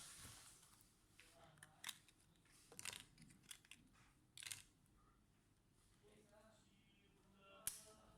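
Faint, scattered clicks and light scrapes of small hard laptop parts being handled, about five separate clicks, the sharpest near the end.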